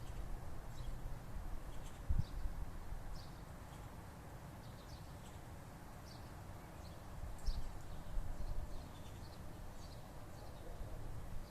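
Small birds chirping, short high calls scattered throughout, over a steady low rumble with a couple of dull bumps.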